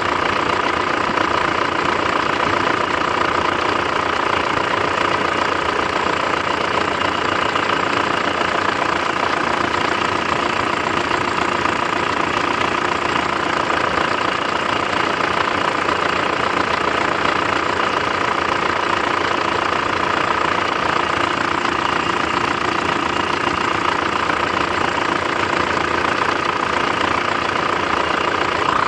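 Mitsubishi 4M41 3.2-litre four-cylinder turbodiesel running steadily at idle with a knock in the engine, the fault the recording is made to show.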